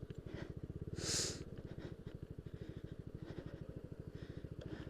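Yamaha Aerox scooter's engine running steadily at low revs, an even rapid pulsing. A short hiss about a second in.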